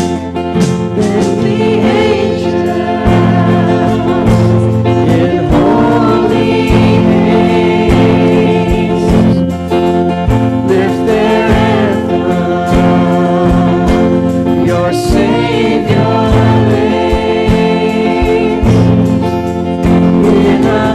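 Worship band and singers performing a Christmas worship song, with voices singing over sustained chords and strummed guitar.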